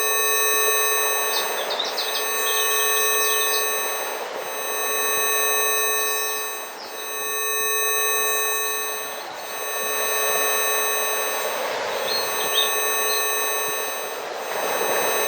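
A chord of steady electronic sine tones, from a low hum up to a very high whine, mixed over a nature-sounds bed. The bed is a rushing noise that swells and fades every few seconds, with scattered bird chirps, mostly early and again near the end.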